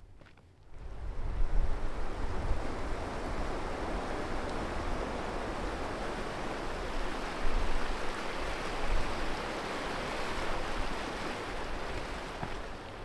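Wind blowing steadily with a low rumbling buffet on the microphone. It comes up about a second in and eases near the end.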